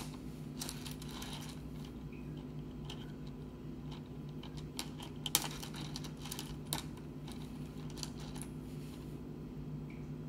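Pieces of rough opal clicking and knocking lightly against one another as fingers sort through a pile of stones: irregular small clicks, with a sharper knock about five seconds in, over a steady low hum.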